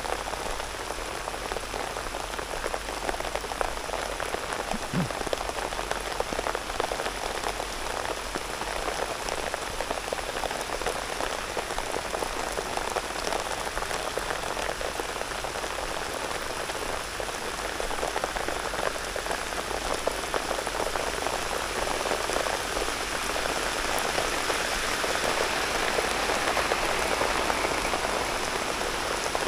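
Rain falling steadily, a dense patter of drops, growing a little louder over the last few seconds.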